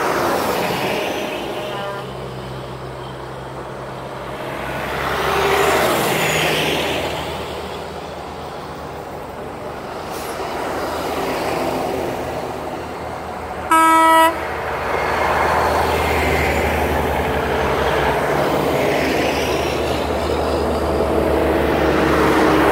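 Heavy diesel trucks in a convoy passing one after another, the engine and tyre noise swelling and fading with each pass. A single loud horn blast of about half a second comes about two-thirds of the way through and is the loudest sound, with a faint short toot about two seconds in.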